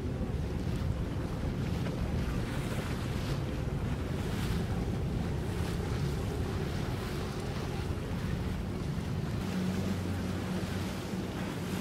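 Boat engine running steadily under water and wave noise, with wind on the microphone; its low hum grows stronger about nine seconds in.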